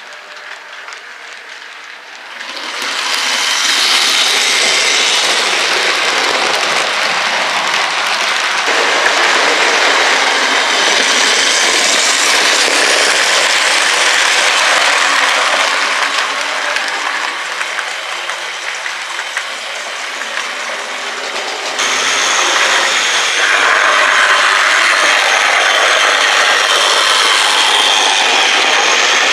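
OO gauge model train running past close by: a steady whirr and rattle of motor and wheels on the track. It gets much louder about two seconds in as the train nears, and the sound changes somewhat near the end.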